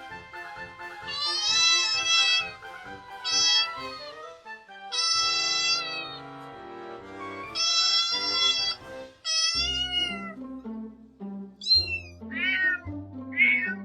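Kitten meowing over and over, about eight high-pitched mews: the first few drawn out to a second or so, the last ones shorter and quicker. Background music plays underneath, with deeper bass notes coming in about ten seconds in.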